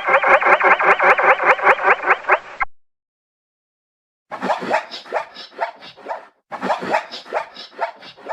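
Zebra calls: a fast, yelping, barking bray of quick repeated pulses that stops about two and a half seconds in, then after a short pause two more such calls back to back.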